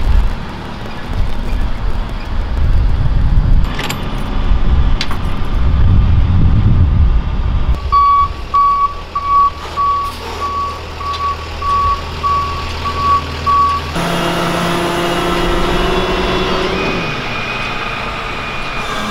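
Heavy trucks manoeuvring: a deep diesel rumble from a moving tractor-trailer, then a backup alarm beeping about twice a second for some six seconds. After an abrupt change, a flatbed tow truck's engine runs with a steady whine while its rollback bed is moved.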